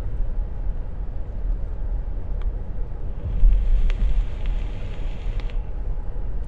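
A draw on a Simurg RDTA vape atomizer: a soft, quiet airflow hiss lasting about two and a half seconds, starting about three seconds in. It sits over the steady low road rumble of a moving car's cabin.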